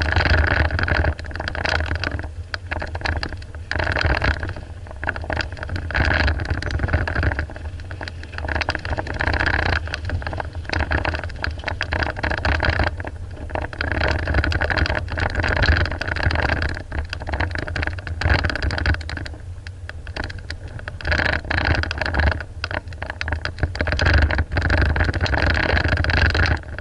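Off-road vehicle driving over a rough track: the engine runs with a steady low rumble that rises and falls in loudness, with many knocks and rattles throughout.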